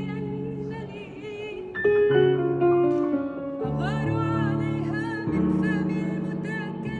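A voice singing a melodic line with vibrato over held low instrumental notes, plausibly a sung Arabic poem with accompaniment.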